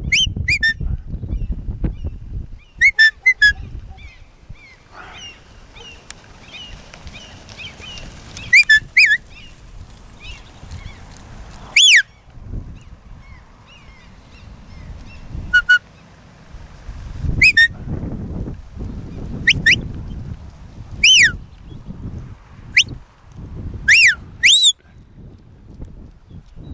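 Shepherd's whistle commands to a working border collie: about ten groups of short, sharp, high whistles. Each is a quick rising or falling sweep, some single and some in quick pairs or triplets, spaced one to a few seconds apart.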